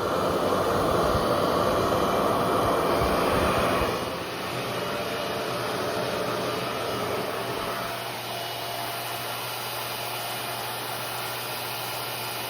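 RevAir reverse-air hair dryer running, its suction blower making a steady rushing noise. It is louder for about the first four seconds, then settles to a lower, even level with a faint hum.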